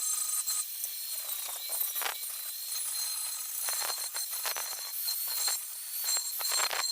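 Electric arc welding: a steady, high crackling hiss with irregular pops, all through.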